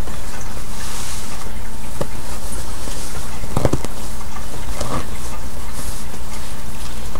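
Soft rustling and handling of baby clothes on a doll, with a few light knocks, over a steady hum and hiss.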